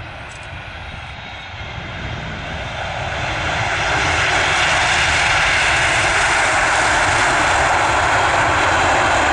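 Jet engine noise from a Boeing 747-8F freighter's four General Electric GEnx engines as it touches down and rolls out on the runway. The rushing sound swells over a couple of seconds, a few seconds in, then holds loud.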